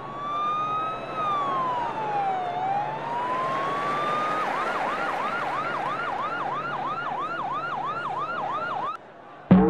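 Emergency-vehicle siren sound effect: a slow wail rising, falling and rising again, then switching to a fast yelp of about three sweeps a second, cutting off about nine seconds in. A sharp drum-like hit follows right at the end.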